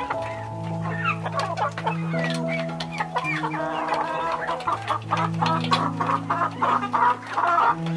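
Chickens clucking in short rising-and-falling calls, with quick taps of beaks pecking grain off concrete, over background music of long held low notes.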